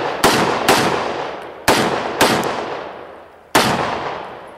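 Rifle shots, five in about three and a half seconds: two quick pairs and then a single shot. Each shot cracks sharply and then fades away over about a second.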